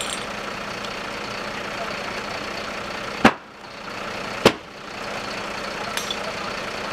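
Two sharp bangs about a second apart, a little past the middle, from small explosions inside the burning car workshop, over a steady background din.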